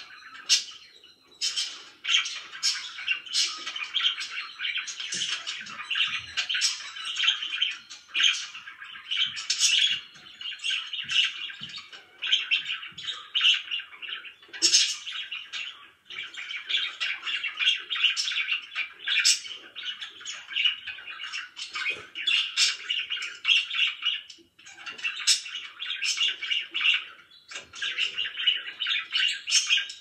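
Several pet budgerigars chirping and warbling together in a dense, continuous chatter of quick sharp chirps, with a few brief pauses.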